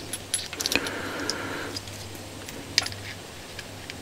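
Push-connect air-line fittings being threaded by hand into a toggle switch: irregular small clicks and ticks, with a short rasp of threading about a second in. A faint steady hum lies underneath.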